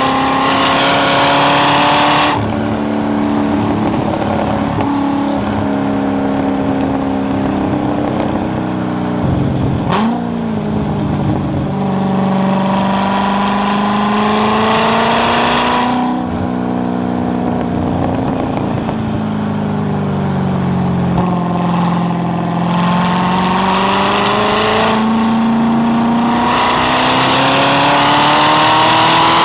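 C6 Corvette Z06's 7.0-litre LS7 V8 under hard acceleration on track, its pitch climbing through the revs and dropping sharply at upshifts about 2 seconds in and again about halfway. A quick rev blip near the one-third mark and a slow fall then rise in pitch later mark braking and a downshift before it pulls hard again toward the end.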